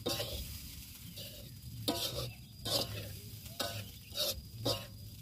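Metal spatula scraping and turning corn fried rice in a wok while it fries, about six strokes at uneven intervals.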